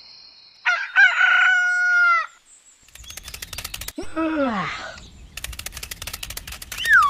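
A rooster crowing cock-a-doodle-doo, about a second in, its last note held and then dropping. After it come patches of rapid ticking, a falling pitched glide, and near the end a warbling tone.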